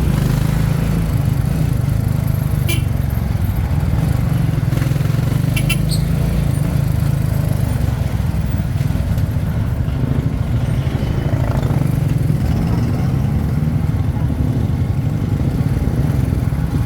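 Jeepney engine running steadily, a continuous low drone, with a few brief clicks about three and six seconds in.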